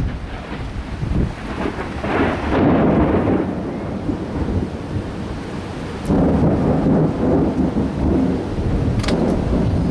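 Thunder rumbling, with two long rolls swelling up about two seconds in and again about six seconds in. A sharp click comes near the end.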